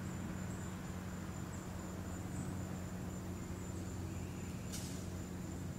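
Insects singing, a steady high-pitched trill, over a faint low hum and quiet outdoor background.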